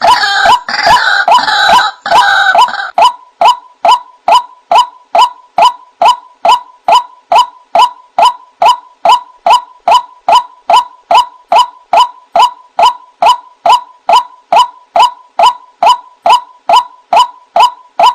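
White-breasted waterhen (ruak-ruak) calling. A rapid jumble of overlapping calls comes first, then after about three seconds a long run of single short notes repeated evenly, about two and a half a second.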